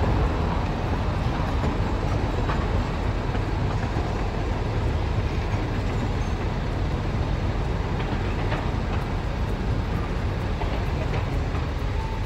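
Green Mover articulated low-floor tram running through a street junction over the track crossings, a steady rolling rumble mixed with passing road traffic.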